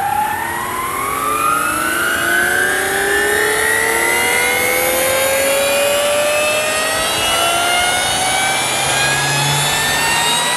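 Scale model MD900 helicopter spooling up: a whine that rises slowly and steadily in pitch as the main rotor comes up to speed.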